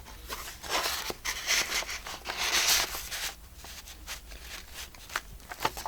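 Paper pages and a fold-over flap of a handmade junk journal rustling and scraping as they are handled and turned. There are a few louder bursts of rustling in the first three seconds, then softer brushing.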